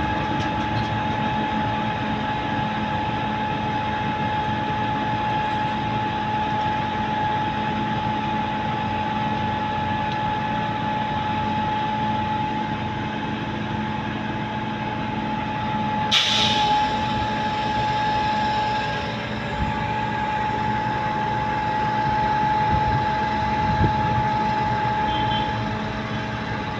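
Concrete truck's diesel engine and machinery running steadily, with a constant whine. About sixteen seconds in there is one short burst of hiss, like compressed air being let out.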